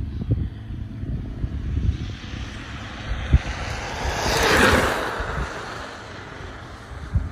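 Electric scooter passing close by on tarmac: a rushing noise of tyres and motion swells to its loudest about halfway through, then fades as it rides away. Low rumbling and knocks run underneath.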